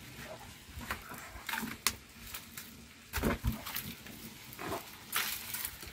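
Firewood burning in an open stone hearth, crackling with scattered sharp pops, and a couple of louder brief sounds about three and five seconds in.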